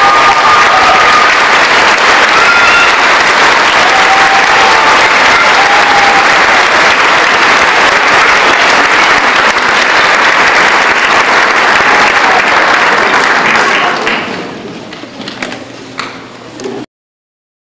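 Audience applauding steadily after a choir performance. Around fourteen seconds in the applause dies away to scattered claps, and then the sound cuts off abruptly.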